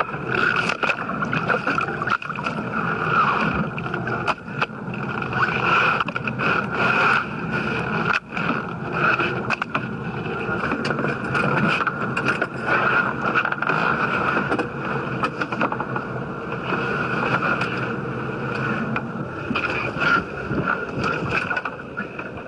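Small open boat at sea: steady wind and boat noise on the microphone, broken by irregular knocks and scrapes on the hull and deck as a shark is hauled aboard.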